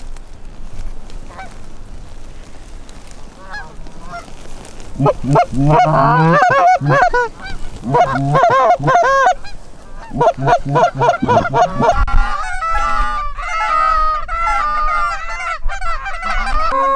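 Canada goose honks and clucks. They are faint at first, then from about five seconds in become loud, rapid calls that overlap one another.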